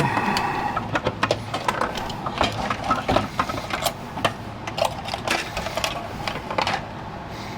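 Objects being handled and set down on a workbench: irregular clicks and knocks, over a low steady hum.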